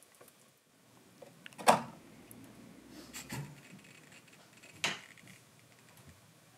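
A few sharp clicks and knocks of objects being handled, the loudest about a second and a half in.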